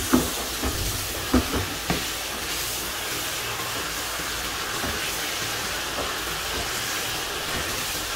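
Chicken pieces sizzling in hot oil in a nonstick karahi: a steady frying hiss, with a few knocks of the spatula against the pan in the first two seconds as the pieces are turned.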